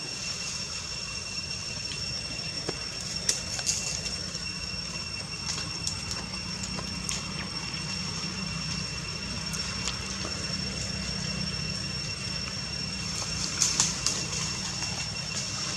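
Steady outdoor background: a continuous low rumble under a thin, unbroken high-pitched whine, with a few faint short clicks and rustles, a small cluster of them near the end.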